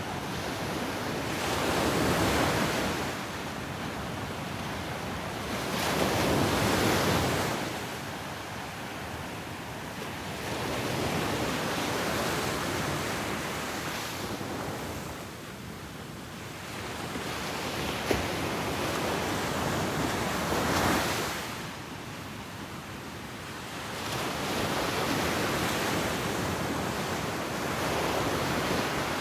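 Ocean waves breaking and washing up the beach, the surf swelling and easing about every four to six seconds, with some wind.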